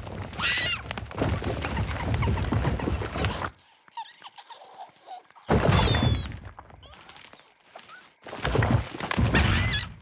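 Cartoon sound effects: three loud, rumbling noisy rushes with short quiet gaps between them, and high, wavering squeaky cries over the first and last.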